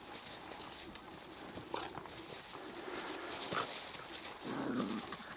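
Golden retriever and Jack Russell terrier puppies play-wrestling in dry leaves and brush: rustling and scuffling, with a few short yips and a low growl near the end.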